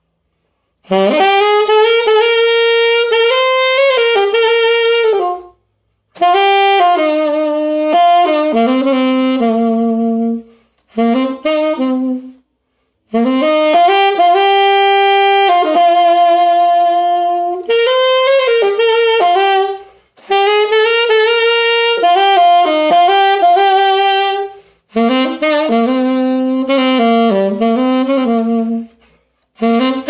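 Alto saxophone fitted with a Free'Sound ligature, played unaccompanied: melodic phrases with long held notes, one with vibrato, broken by short pauses for breath.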